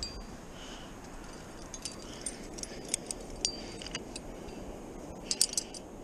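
Metal climbing gear clinking: carabiners and a cam's sling rattling against each other as a cam is placed in a crack and a quickdraw is handled. A scatter of sharp clicks, with the loudest cluster about five seconds in.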